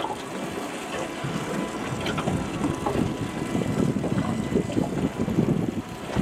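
Wind buffeting the microphone over water sloshing against a small boat's hull on a choppy sea: a steady, uneven rush with a few faint ticks.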